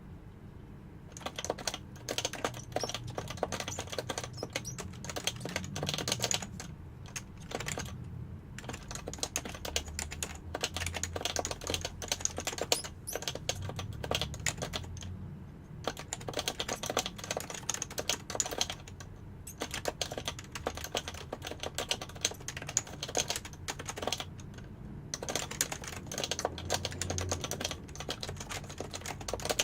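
Continuous fast typing on an HHKB (Happy Hacking Keyboard) with Topre electrostatic capacitive key switches: dense runs of keystrokes broken by brief pauses.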